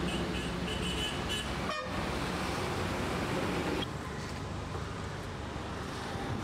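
Street traffic noise with a vehicle horn tooting in short repeated blasts during the first second and a half.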